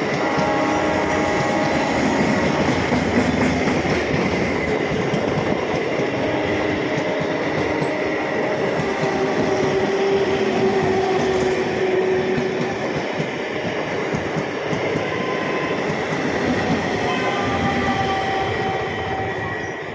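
Gaya–Patna passenger train running on the rails: a steady, loud rumble and rattle of wheels and carriages, with a few thin held tones over it.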